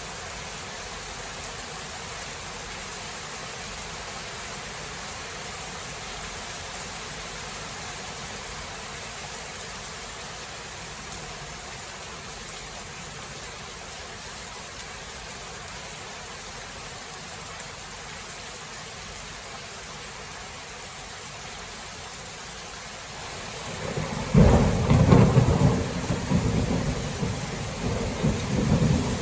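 Steady rain falling. Near the end a long roll of thunder breaks in, low and rumbling, and becomes much louder than the rain.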